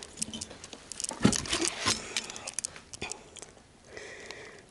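Paper and cardboard rustling and crackling in short, uneven rustles as a pile of old papers is rummaged through and a notebook is picked up, busiest about a second in and dying down near the end.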